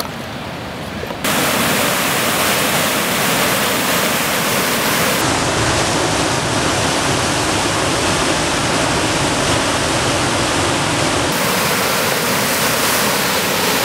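Loud, steady rush of churning river whitewater, starting abruptly about a second in after a quieter wash of water.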